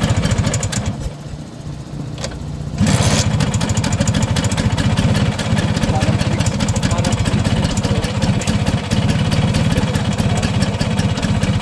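Vespa PX150's single-cylinder two-stroke engine running on a scooter that is hard to start. It sags to a lower, thinner note for a couple of seconds, then picks up sharply about three seconds in and keeps running steadily.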